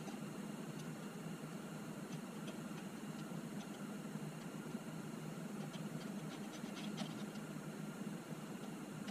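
Faint, steady low hum with a few small metallic clicks and taps about two-thirds of the way through, as hand tools are handled against the mill head.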